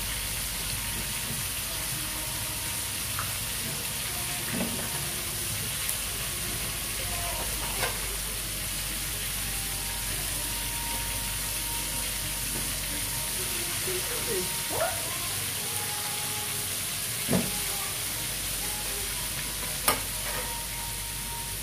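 Flour-coated fish pieces frying in a pan of hot oil: a steady sizzle, broken by a few sharp clicks of metal tongs against the pan, the loudest two near the end.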